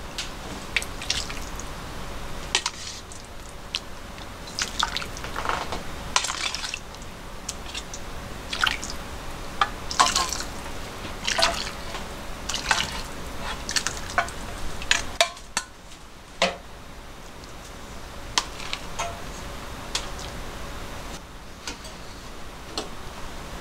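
Pork-boiling broth poured from an aluminium pan into stainless steel bowls, dripping and splashing, with irregular clinks of a metal ladle against the pans. A faint steady hum runs underneath.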